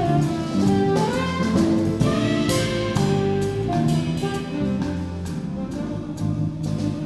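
Live jazz quartet playing: saxophone sustaining long melody notes over piano, bass and drum kit, with cymbal strikes.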